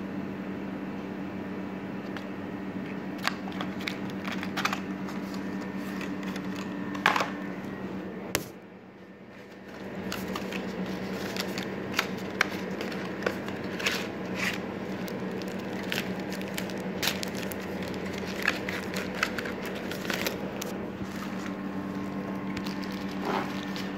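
Plastic packaging of a phone's boxed accessories being handled: crinkling with many small clicks and taps, over a steady low hum.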